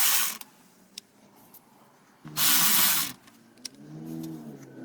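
Air ratchet spinning out engine cover bolts in short hissing bursts of under a second each, with a few sharp clicks and a brief low hum near the end.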